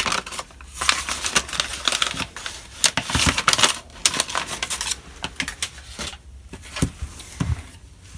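Brown kraft paper crinkling and rustling in rapid crackles as it is pulled off a small metal tin, busiest in the first few seconds and thinning out toward the end.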